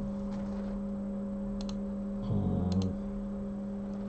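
A steady low electrical hum runs throughout. Light clicks come in two quick pairs, about a second and a half in and again near three seconds, and a brief low 'mm' is hummed just past the middle.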